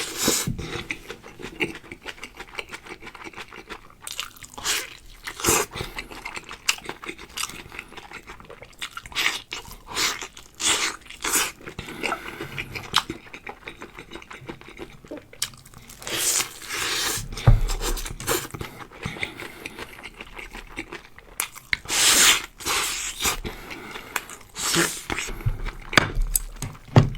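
Close-miked eating sounds: a person biting and chewing food with irregular, loud crunches throughout and wetter chewing between them.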